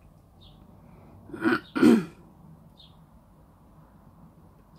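A woman clearing her throat: two short bursts close together, about a second and a half in.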